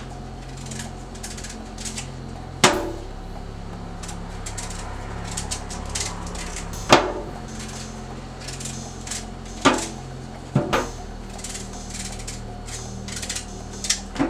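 Peeling and cutting sweet potato and pumpkin with a knife: small scraping and tapping sounds, with four sharp knocks, the loudest about 7 seconds in, over a steady low hum.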